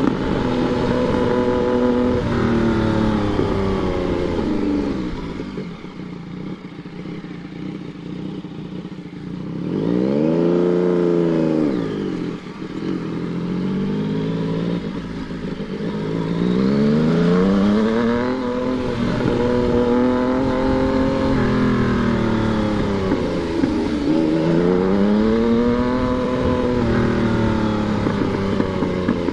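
Yamaha MT-09's three-cylinder engine being ridden, its pitch climbing and dropping again and again as it accelerates and backs off. There is a quick rev that rises and falls about ten seconds in.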